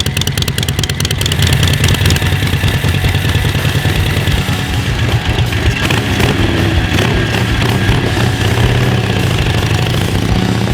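Motorcycle engine running steadily, with a rapid ticking clatter over it in the first second or so.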